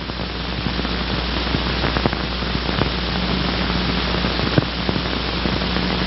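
Steady hiss with a low hum and a few faint clicks, the surface noise of an old 16mm film's soundtrack.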